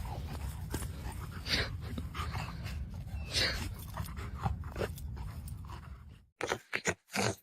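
A dog's sounds over a steady low rumble, with scattered short clicks and scuffs. The sound cuts off suddenly about six seconds in.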